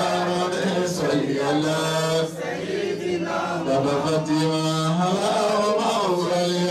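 A man chanting Islamic devotional verses into a handheld microphone, in long held notes that glide up and down.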